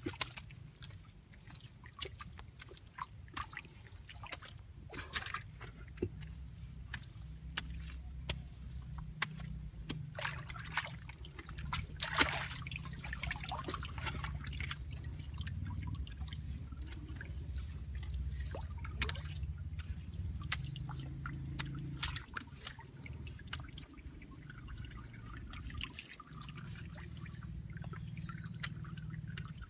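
Shallow muddy water trickling and splashing as hands work in it, with many small drips and splashes and one louder splash about twelve seconds in, over a steady low rumble.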